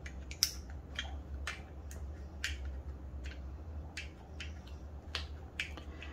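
Small, sharp clicks and taps of Glock 19 Gen 5 pistol parts being handled during disassembly, irregular at about two a second, over a steady low hum.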